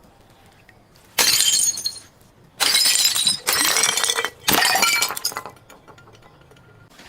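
Glass bottles smashing: four sudden crashes of shattering glass about a second apart, each dying away within a second.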